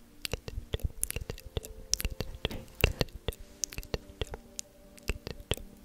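Close-miked ASMR mouth sounds: quick, sharp clicks and pops, several a second at an uneven pace, over a faint steady hum.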